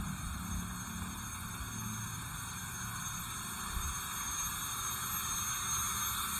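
Street traffic: a steady low rumble of road vehicles with a hiss of road noise.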